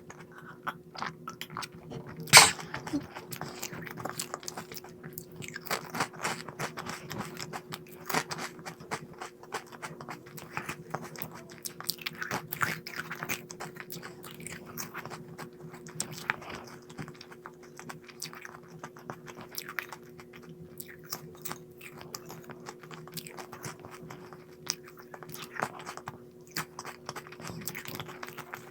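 A person biting and chewing crunchy snack food close to the microphone, with irregular crunches throughout and one much louder sharp crunch about two seconds in.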